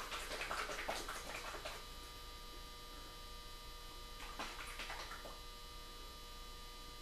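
Cloth rag being folded and handled, a soft rustling for the first couple of seconds, then two brief handling scuffs about four and a half seconds in as a bottle of oil stain is put to the rag. A faint steady electrical hum runs underneath.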